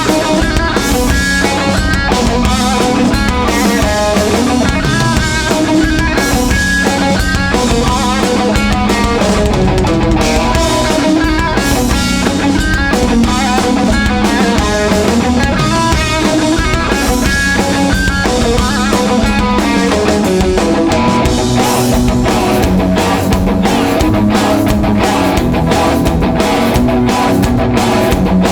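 Live punk rock band playing an instrumental passage: distorted electric guitars, bass and drum kit at full volume.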